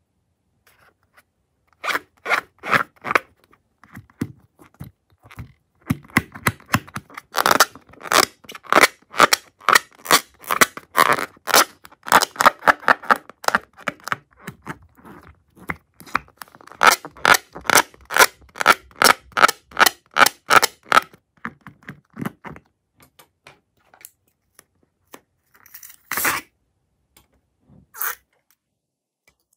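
Hands rubbing and squeezing a slime-filled rubber balloon make a long run of quick scraping rubs, several a second, that stop for a few seconds. Near the end there is one louder sharp sound and then a shorter one, as the balloon is opened and the slime starts to pour.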